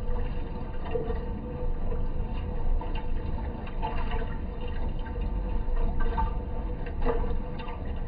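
Washing machine running with water moving in the drum, over a steady hum and low rumble, with small clicks scattered through.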